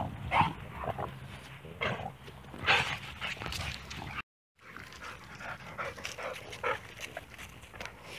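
Dogs panting and moving about, with short clicks and knocks among them. The sound drops out completely for a moment about four seconds in.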